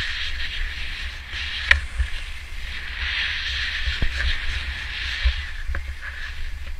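Skis hissing over snow on a downhill run, the hiss swelling and fading, with wind buffeting the microphone in a steady low rumble and a couple of sharp clicks.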